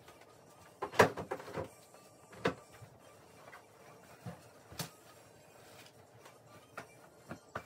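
Pillows and bedding being handled while a bed is made: a cluster of knocks and rustles about a second in, then single knocks twice more and a few light taps.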